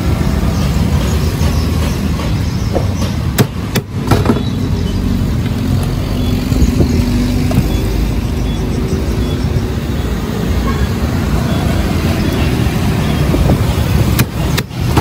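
Steady road traffic noise from vehicles passing on a busy road beside the stall. Brief clicks and sudden dips in level come about four seconds in and again near the end.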